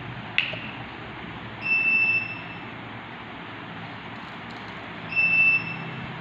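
Two electronic beeps, each a single steady high tone of about half a second to a second, roughly three and a half seconds apart, over a low steady hum. There is one sharp click about half a second in.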